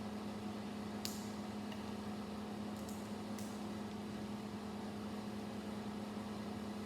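A steady low hum in the room, with a few faint clicks of plastic Lego pieces being handled and pressed together.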